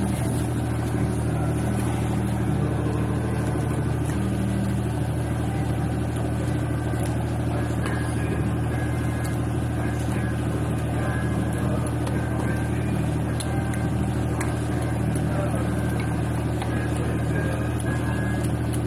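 A steady low mechanical drone, like an idling engine or running machine, with faint scrapes and ticks from a knife working a gilthead sea bream on a plastic cutting board.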